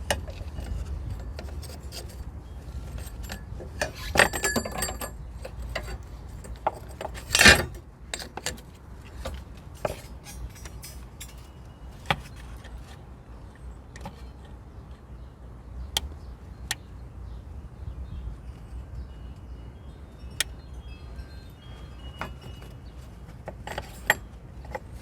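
Scattered metallic clinks, scrapes and knocks as a car's rear coil spring and suspension parts are worked into place by hand. There is a brief rattle about four seconds in and one loud clank about seven and a half seconds in.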